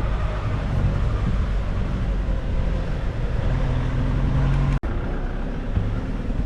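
Nissan Navara D40 ute driving, a steady low engine and road drone whose pitch shifts a little. The sound cuts out for an instant about five seconds in.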